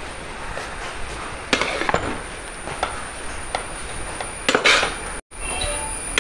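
Metal ladle scraping and clinking against a large metal pot as cooked biriyani rice is gently turned over, with scattered light knocks and a longer scrape about four and a half seconds in.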